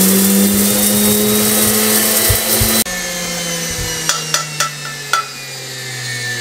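Small electric spice grinder running with a jar of whole spices, a coarse grind, then switched off about three seconds in. Its motor hum falls in pitch as it winds down, with a few sharp clicks.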